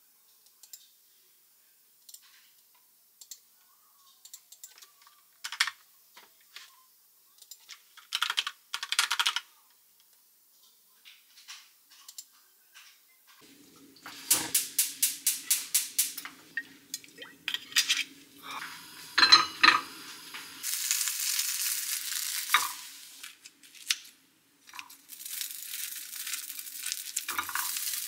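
Sparse clicks of a computer keyboard and mouse. About halfway through comes a quick run of ticks, about four a second, from a gas hob's igniter. Then a pan knocks on the burner and breaded chicken pieces sizzle as they fry in the pan near the end.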